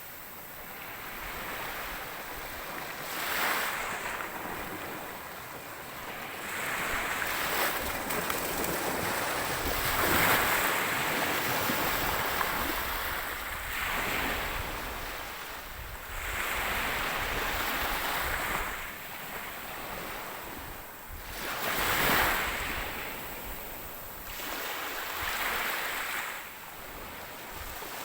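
Sea waves breaking and washing ashore, the surf swelling and falling back in repeated surges every few seconds.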